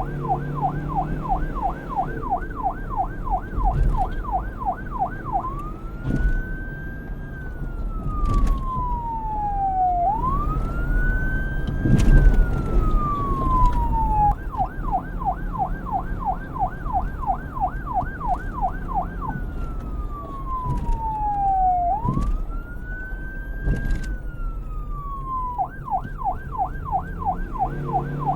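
Electronic police siren switching between modes: a fast yelp warbling up and down a few times a second, then a slow wail that rises and falls, then back to the yelp. It changes to the wail about five seconds in, to the yelp at the middle, to the wail again, and to the yelp once more near the end. A low rumble runs beneath it.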